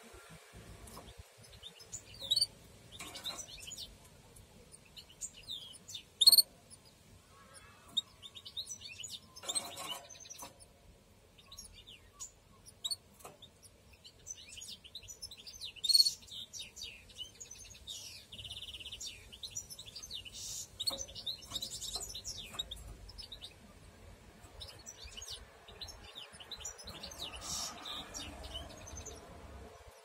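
Canaries chirping: many short, high cheeps scattered throughout, busiest around the middle, with a louder one about six seconds in and another about sixteen seconds in.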